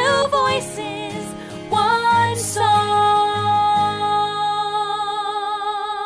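Background pop song: female singing over instruments, moving through a short melodic run and then holding one long note with vibrato.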